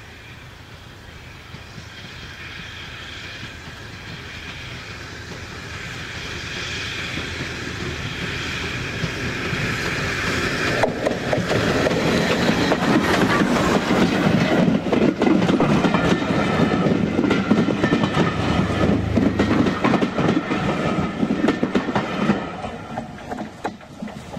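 Steam locomotive hauling coaches, growing steadily louder as it approaches, then passing close about 11 seconds in with the wheels of the coaches clicking and rattling over the rail joints, and falling away about 22 seconds in as the train goes by.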